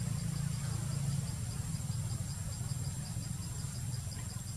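Ambient outdoor sound: a low, steady rumble, with an insect chirping high and evenly about five times a second above it.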